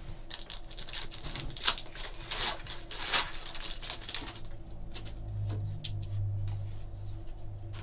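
Foil wrapper of a trading-card pack crinkling and tearing as it is ripped open by hand: a run of sharp crackles for about four seconds. After that, quieter rustling of the cards being handled over a low steady hum.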